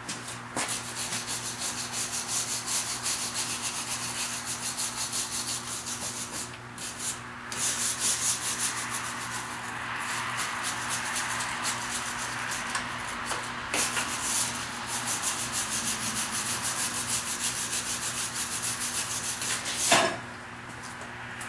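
Hand wire brush scrubbing corroded, rusty metal after electrolysis, in quick back-and-forth strokes about three a second, pausing briefly about a third of the way in. A single sharp knock near the end.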